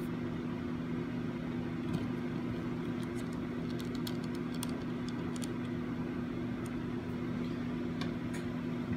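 Faint, scattered small clicks and taps from a small Phillips screwdriver and the plastic dashcam case as its back-cover screws are reinstalled, over a steady background hum.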